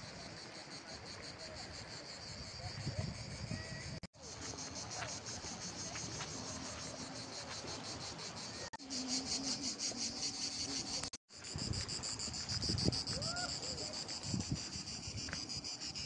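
Cicadas singing in pine trees: a steady, high pulsing drone that gets louder in the second half and breaks off abruptly three times.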